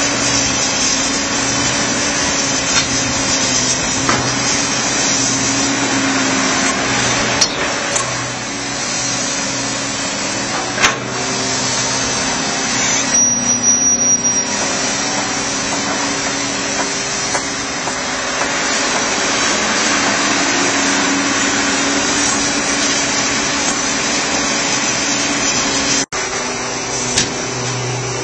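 John Deere backhoe loader's diesel engine running steadily under load, its pitch rising and falling as the operator works the digger, with a few sharp knocks in the first half.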